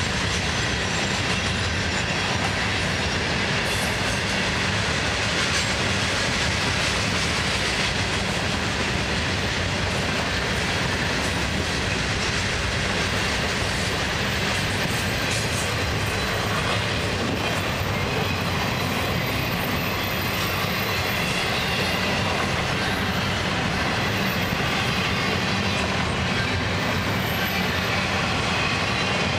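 Florida East Coast Railway freight train rolling past: a steady, loud noise of steel wheels on rail as hopper cars and then double-stack intermodal well cars go by.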